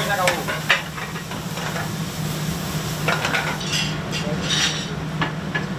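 Shrimp, scallops and vegetables sizzling in a fry pan, with a utensil clinking and scraping against the pan several times, over a steady low hum.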